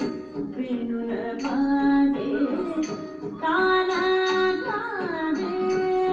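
Carnatic music for Bharatanatyam: a vocalist holds long notes and glides between them over steady instrumental accompaniment, with occasional sharp percussion strokes.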